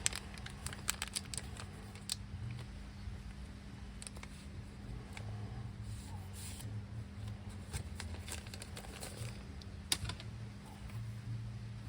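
Scattered light clicks and taps of small plastic parts and tools being handled on a workbench, with one sharper click about ten seconds in, over a steady low hum.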